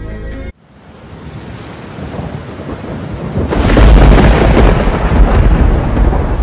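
Music cuts off about half a second in, then a thunder-and-rain sound effect swells up: steady rain hiss with deep rolling rumble, loudest from about three and a half seconds in.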